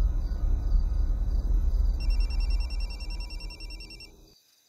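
A mobile phone ringing unanswered with a warbling electronic ringtone: a pause, then a burst of trilling from about two seconds in that stops shortly before the end. Underneath runs a louder low droning rumble that fades away near the end.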